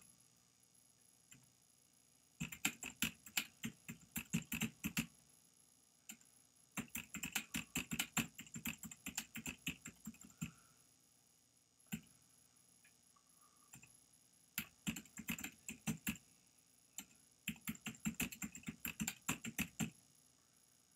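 Computer keyboard being typed on in four quick runs of keystrokes, separated by short pauses, with a lone click between runs.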